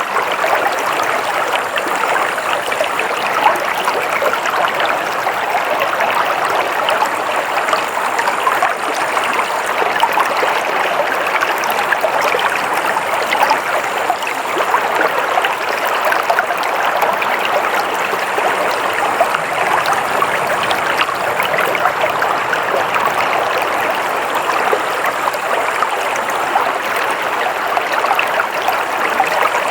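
Stream water flowing and trickling over rocks, a steady babble without pause.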